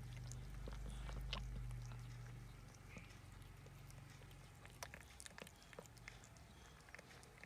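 Mother cat licking and chewing in a cardboard box: faint scattered wet clicks and small rustles. A low hum underneath fades out about two and a half seconds in.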